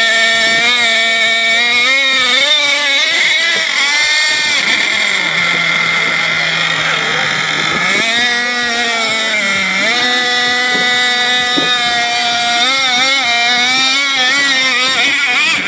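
Radio-controlled monster truck's engine running under load in mud, revving up and down over and over, settling to a lower steady note for a few seconds in the middle before climbing again.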